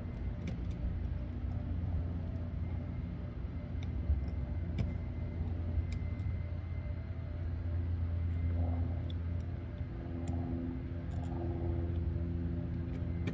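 A steady low engine hum, like a vehicle idling, with a few light clicks and taps of hand work at the car's door and interior trim.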